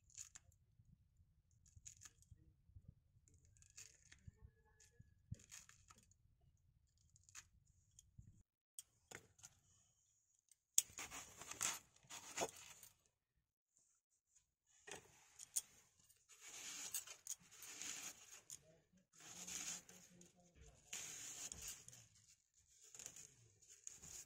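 A knife paring and cutting through a fresh apple: repeated crisp scraping strokes, each about a second long, starting about ten seconds in. Before that there are only faint soft clicks of an orange being peeled by hand.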